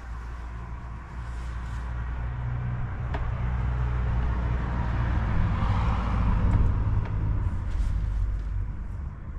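A motor vehicle passing by: engine and road noise grow louder to a peak about six seconds in, then fade.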